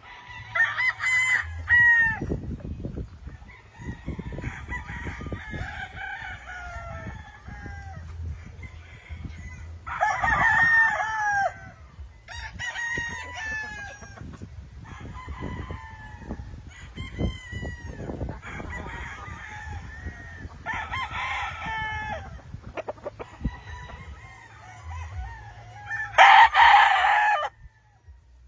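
Several gamefowl roosters crowing one after another, some crows overlapping. The loudest and longest crow comes near the end.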